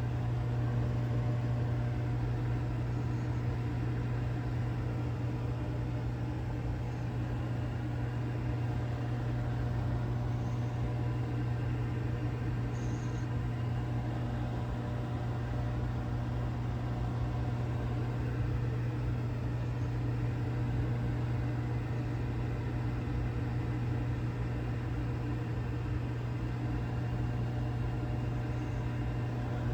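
Microwave oven running mid-cycle: a steady low hum with fan noise.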